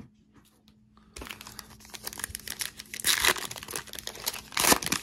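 Wrapper of a Topps Holiday baseball card pack being torn open and crinkled by hand: a dense crackle that starts about a second in, loudest in two bursts around three seconds in and near the end.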